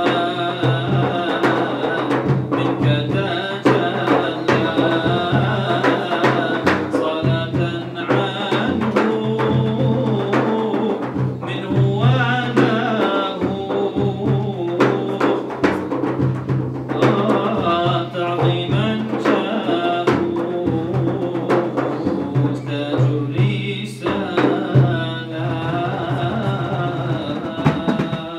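Male voice singing an Arabic Sufi devotional qasida into a microphone, with melismatic lines over steady drum accompaniment.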